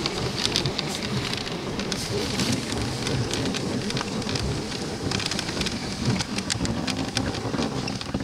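Dog sled running over packed snow behind a husky team: a steady rushing, scraping noise from the runners, with many small sharp clicks and crunches throughout.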